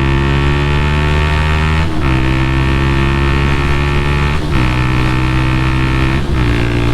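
Honda motorcycle engine accelerating through the gears: its pitch climbs steadily, then drops sharply at each of three upshifts, about two, four and a half, and six seconds in.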